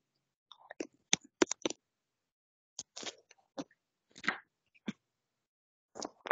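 Scattered clusters of short clicks and knocks over an online video call, cutting in and out with dead silence between them.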